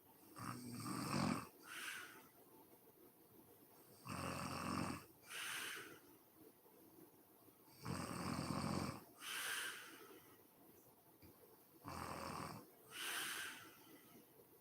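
A sleeping woman snoring: four slow breath cycles about four seconds apart, each a rattling snore on the in-breath of about a second, followed by a shorter, breathier puff on the out-breath.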